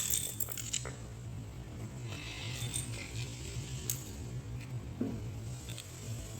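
Scattered light clicks and rattles of plastic and metal printer parts being handled and pried at during disassembly, over a steady low hum.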